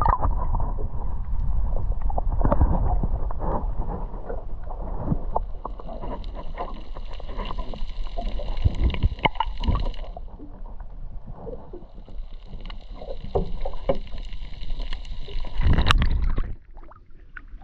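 Water sounds picked up by a camera held underwater: muffled sloshing and gurgling with many small clicks and knocks. A high steady whine comes in twice for a few seconds, and there is a louder rush near the end.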